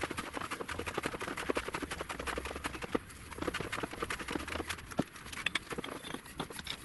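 Quick, irregular metal clicks and clinks as a large three-jaw lathe chuck is worked by hand, its jaws opened with the chuck key and a piece of steel drill pipe brought up to them.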